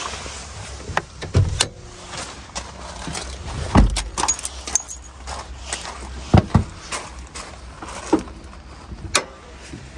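Scattered clicks and knocks as a Nissan Frontier pickup's hood is opened: the hood release pulled, a door shut, then the hood latch freed and the hood raised.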